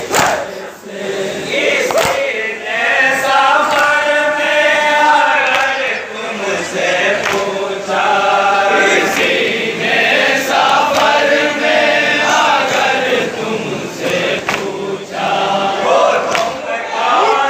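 A group of men reciting a nauha, a Shia mourning lament, in unison, in long sung phrases. A few sharp slaps near the start come from chest-beating (matam) in the crowd.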